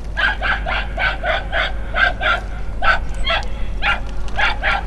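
A dog barking, about a dozen short barks in quick succession, some in pairs.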